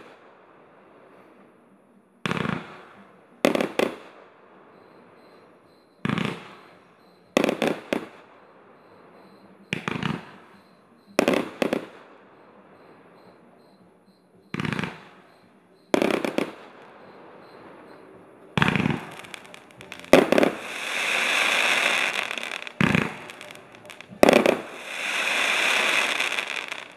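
Jorge Fireworks Brocade Mine 49-shot barrage cake firing: a sharp bang every second or two, some in quick pairs, each dying away over about a second. Near the end come two longer hissing swells, each a few seconds long.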